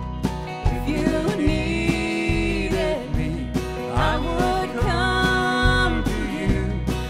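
Live country band playing a slow song, with acoustic and electric guitars over bass and drums at a steady beat. Held melody notes slide up into new pitches a few times.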